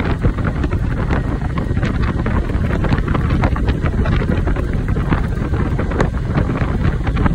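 Wind buffeting a phone's microphone from a moving vehicle: a steady loud rush of wind and road noise with frequent crackling gusts.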